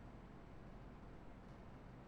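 Near silence: room tone with faint steady hiss, no keystrokes.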